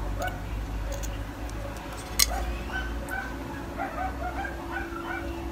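Short, high whining calls from an animal, repeated many times, with a single sharp click about two seconds in.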